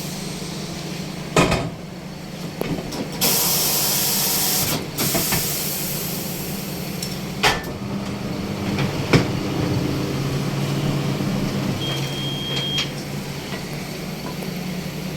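Pneumatic tyre-changer machine breaking a car tyre's bead: a loud burst of compressed-air hiss about three seconds in, lasting a second and a half, a few sharp metallic knocks, and a steady low hum.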